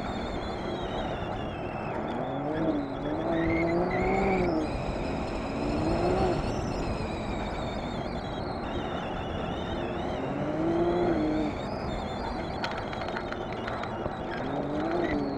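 Side-by-side UTV engine running under a steady rush of wind and tyre noise, its pitch rising and falling several times as it revs up and eases off.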